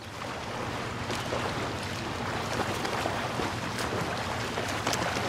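Steady rushing outdoor noise with wind on the microphone, a low rumble under it and a few faint ticks.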